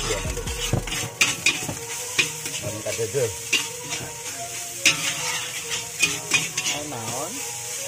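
Metal spatula scraping and clanking against a wok as fried rice is stir-fried over a gas flame, with irregular sharp clanks over a steady frying sizzle.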